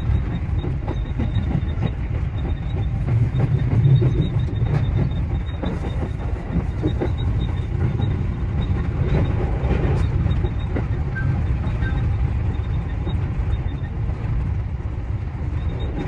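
JR Central 315 series electric train running along the track: a steady low rumble with scattered clicks from the wheels.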